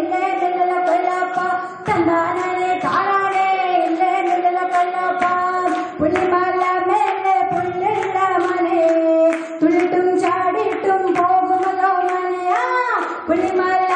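A young woman's solo voice singing a Malayalam nadan pattu (Kerala folk song), in long held phrases with short breaks for breath every three to four seconds.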